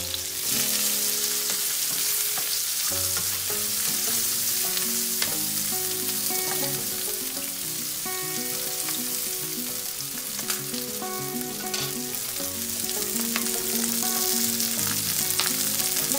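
Chopped onion, garlic, almonds, capsicum and ginger sizzling in hot ghee in a non-stick frying pan, stirred with a spatula, with a steady hiss and small scraping clicks.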